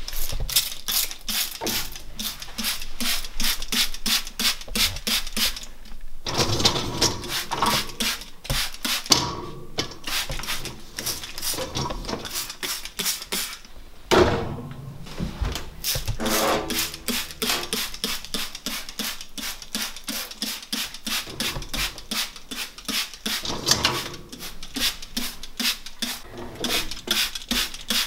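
Hand trigger spray bottle pumped over and over, about three quick hissing squirts a second, misting lemon juice over a dishwasher's wire racks and interior. There are two short breaks in the spraying, about a quarter and half of the way through.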